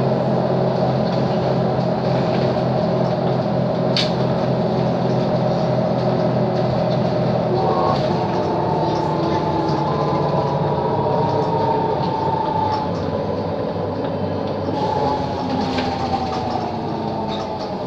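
Mercedes-Benz O 530 Citaro city bus running under way, heard from inside the passenger cabin: a steady engine and drivetrain hum, joined about eight seconds in by a high whine that slowly falls in pitch, twice. A single sharp click about four seconds in.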